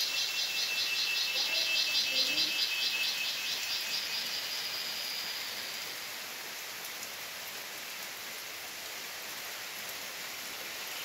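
Steady hiss of monsoon rain falling on foliage, with an insect chorus trilling in rapid pulses, about five a second, that fades out about halfway through.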